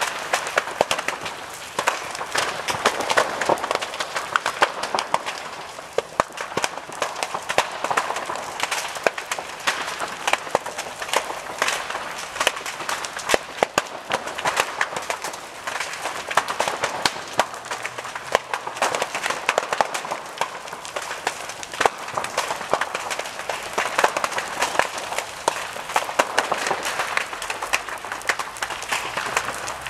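Large building fire crackling and popping as timber roof framing burns, with many sharp irregular cracks over a rushing noise that swells and fades.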